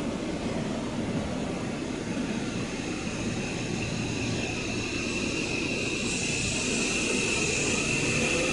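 Electric train running on the line, a steady rumble growing slowly louder, with a high steady whine coming in about halfway and strengthening.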